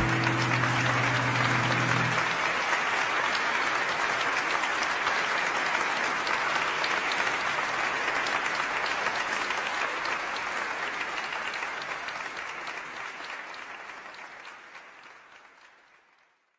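The last held notes of music end about two seconds in and give way to audience applause. The applause fades out over the last few seconds.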